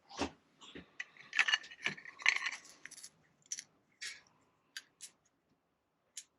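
Small clicks and rattles of wiring connectors being worked loose and pushed onto a 12 V light fitting by hand, a tight, fiddly fit, falling quiet for the last second or so.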